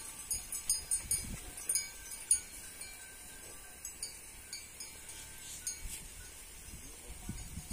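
Small metal livestock bells clinking irregularly, light tinkles scattered through, thickest in the first couple of seconds, with a few low thumps.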